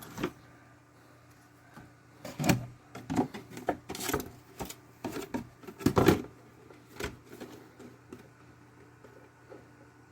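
Irregular clicks, knocks and light rubbing of hands handling the hard plastic parts and wiring of an RC truck, busiest in the middle seconds with two louder knocks.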